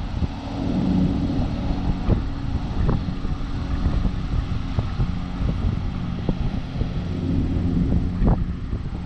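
John Deere LX176 riding lawn mower's engine running steadily at a distance, with wind buffeting the microphone.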